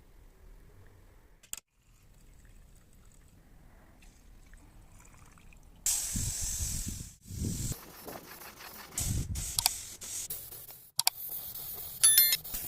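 Pressurised spray hissing in several short bursts, switched on and off, starting about six seconds in after a quiet stretch, with a brief high squeak near the end.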